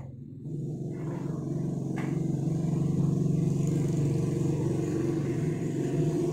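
An engine running with a steady low hum that grows louder over the first few seconds.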